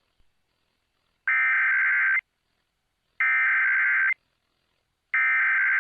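Emergency Alert System SAME header: three bursts of digital data tones, each about a second long and about a second apart. The header encodes the alert that follows, a National Weather Service tornado warning.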